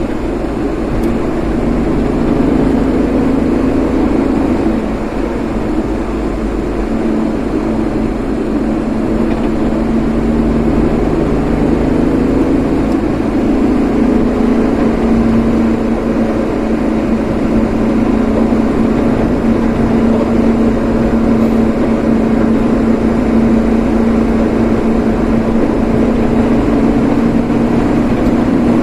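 Vehicle on the move: steady engine and road noise with a low hum whose pitch shifts slightly, no sudden events.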